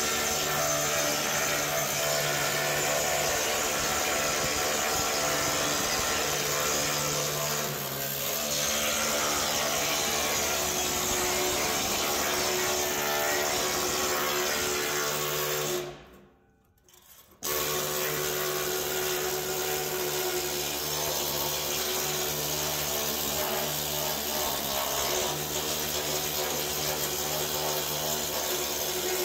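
Pneumatic needle scaler hammering against a steel truck frame rail, a steady loud rattling buzz as it knocks rust scale off the steel. It breaks off for about a second and a half about two-thirds of the way through, then starts again.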